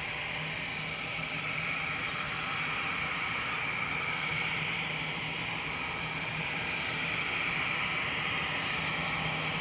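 Airbus A320 jet engines at taxi power as the airliner rolls toward the listener: a steady high whine over a low hum, growing slightly louder.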